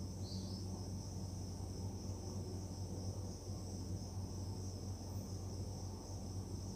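Steady low hum under a steady high-pitched hiss: background noise with no distinct sound.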